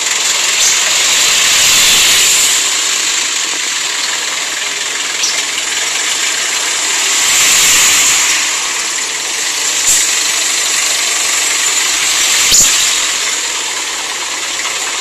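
Jeepney engines running as the jeepneys idle and creep through in a queue, heard as a loud hissing traffic noise that swells twice. There are a couple of sharp clicks in the second half.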